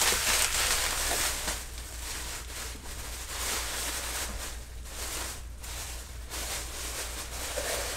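Paper packaging rustling and crinkling as an item is unwrapped by hand, in uneven bursts over a steady low hum.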